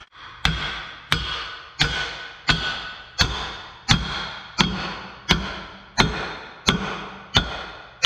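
Heavy hammer striking steel in a steady rhythm, about a dozen blows less than a second apart, each ringing briefly: driving the steel master pin into an excavator track.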